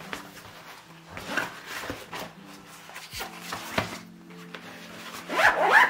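Soft background music with steady low notes, over faint rustling and light knocks as a laptop is slid into a fabric laptop sleeve. A brief, louder rasp comes near the end.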